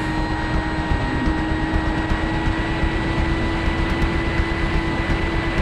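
Brushless electric motor of an S800 Sky Shadow flying wing in flight, whining at a steady pitch that dips briefly about a second in, with wind rumbling over the onboard camera's microphone.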